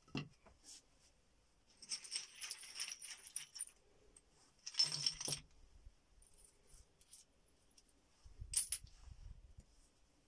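Sharp stone flakes clinking and clattering as they are dropped onto a dirt floor, in two goes a few seconds apart, after a short knock as a bone is set down at the start. A single sharp click comes near the end.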